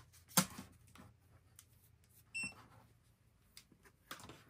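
A sharp knock of something set down on the table, then about two and a half seconds in a single short electronic beep from a digital multimeter, among light handling clicks.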